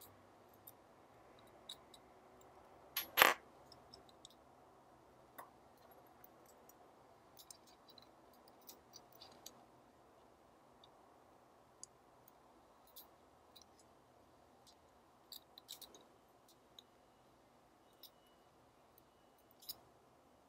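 Small metal clicks and light scrapes of tweezers and a screwdriver working on the parts of a Leica M3's shutter speed control module, scattered irregularly, with one sharp, much louder click about three seconds in.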